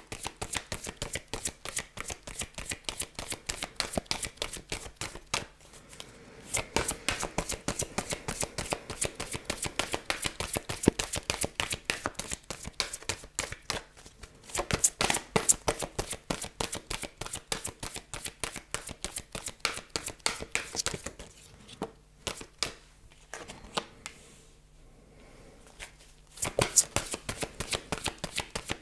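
A deck of Lenormand cards being shuffled by hand: quick papery clicks and slaps of card on card in long runs. The runs break off briefly about five seconds in, and again for a few seconds near the end, before a last short burst.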